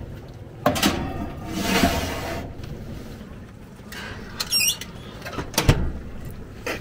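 Kitchen handling sounds: a sharp knock, a scrape lasting about a second, a brief high wavering squeak about four and a half seconds in, then another knock.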